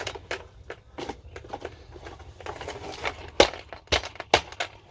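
Plastic end cap being worked onto the end of a 5-inch PVC K-style rain gutter: a run of plastic clicks and knocks, with three loud sharp snaps in the second half. The small chain attached to the cap rattles as it is handled.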